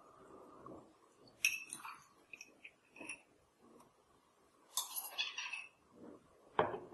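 Metal teaspoon clinking against a small glass tumbler, two sharp ringing clinks with a few lighter taps between, then a duller knock near the end as the glass is set down on a table.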